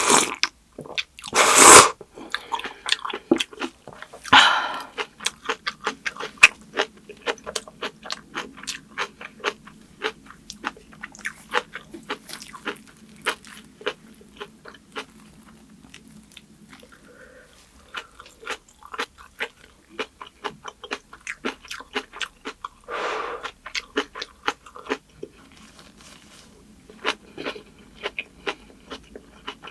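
Close-miked chewing of kimchi and rice: a run of short, crisp crunches, with a few louder crunching bites near the start and about two-thirds of the way through.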